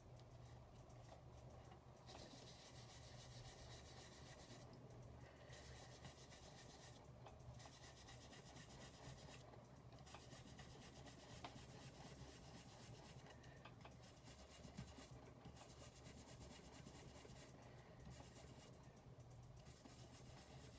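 Faint soft rubbing of a foam ink-blending tool and hands worked over cardstock, coming in strokes a second or two long with brief pauses between them, over a steady low hum.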